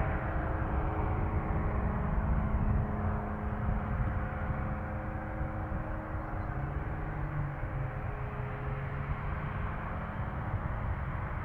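Aircraft engines heard at close range: a steady low rumble with several held hum tones that slowly ease off.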